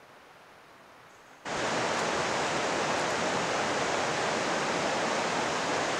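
A faint hiss for about a second and a half, then a sudden switch to the loud, steady rush of a river running over a rocky bed.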